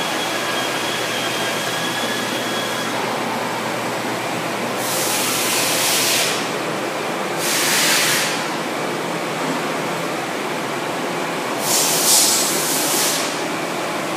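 LeBlond sliding-bed engine lathe running with a steady mechanical drone. Three short bursts of loud hiss rise over it, about five, seven and a half and twelve seconds in.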